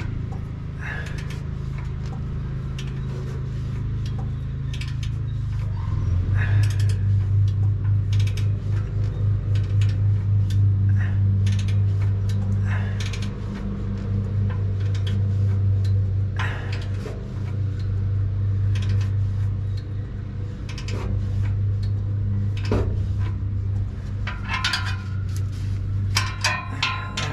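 Ratchet and wrench clicking and clinking on an exhaust clamp while it is torqued down, over a steady low hum. Near the end a digital torque tool beeps, the signal that the clamp nut has reached its set torque.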